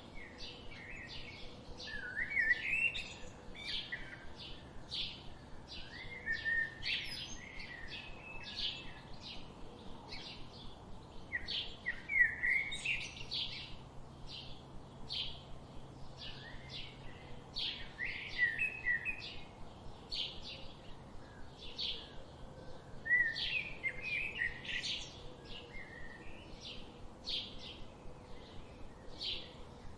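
Songbirds singing: one bird repeats a short, high chirping note about twice a second, while another sings lower warbling phrases every few seconds.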